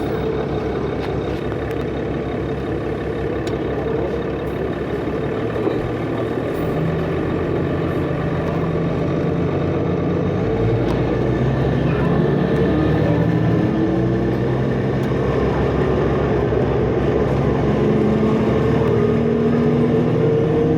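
Inside a 2005 New Flyer D40LF transit bus, its Cummins ISL diesel engine running under way with the whine of its turbocharger. About halfway through the engine note grows louder, and near the end several tones climb together as the bus accelerates.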